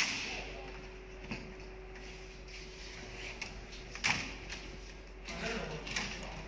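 Steady hum from the automatic multihead sewing machines, with scattered knocks and clatters and the rustle of a large leather panel being handled onto the machine frame.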